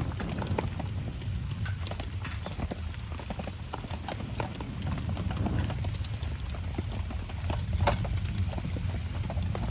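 Wood campfire crackling with irregular sharp pops, over a steady low rumble of rain.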